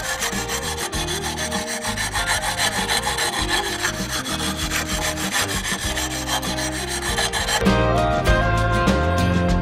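Coarse 40-grit sandpaper, wrapped around a pipe, rubbed round and round against the cut edge of a hole in a ceramic wall tile, a steady scratchy grinding that smooths and trues the hole. Background music plays underneath and grows louder near the end.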